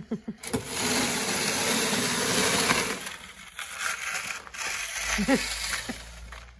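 Wide snow pusher shovel scraping along a concrete garage pad, pushing a load of snow. A loud steady scrape runs for about two and a half seconds, then quieter, broken scraping follows.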